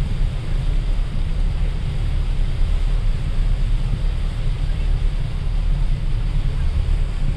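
Wind buffeting the microphone: a loud, low rumble that rises and falls unevenly, with a thinner hiss above it.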